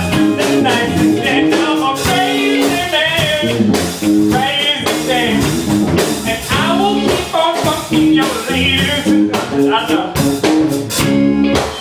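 A blues-rock song: a singer's voice over guitar, bass and a steady drum beat.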